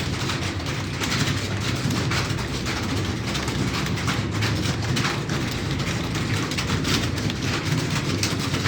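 Fast typing on a computer keyboard: a rapid, uneven patter of key clicks over a steady low hum.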